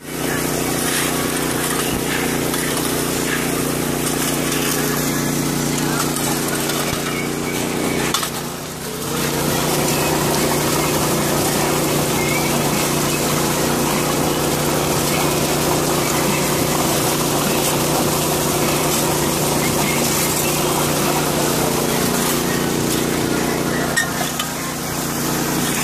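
Small gas-engine water pump running steadily, with water rushing through a highbanker sluice box.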